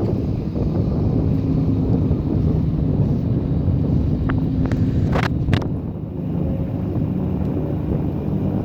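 Steady low engine rumble with wind buffeting the microphone, and a few sharp clicks about five seconds in.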